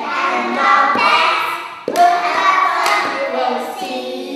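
A woman and young children singing a children's action song together, with a sharp clap about two seconds in.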